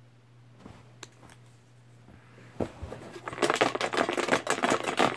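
Paper raffle slips rustling and crinkling as a hand works through them: a few faint clicks, then a dense, irregular crackle from about three seconds in. A steady low hum runs underneath.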